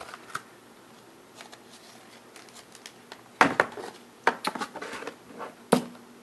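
Cardboard card box and pack packaging being handled and opened: scattered light ticks with a few sharp clicks and knocks, the loudest about three and a half and nearly six seconds in.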